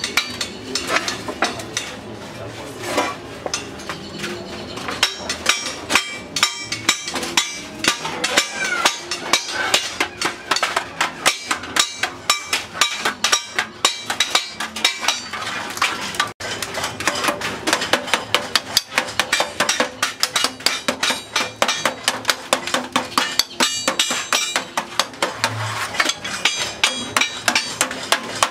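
Rapid, repeated hammer blows on a sheet-aluminium baking pan held against a steel bar, a run of sharp metallic clanks as the pan's sides are beaten into shape.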